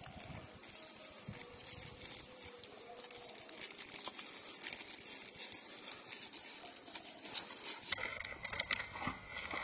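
Puppy suckling at its mother's teat: a rapid patter of small wet smacking clicks.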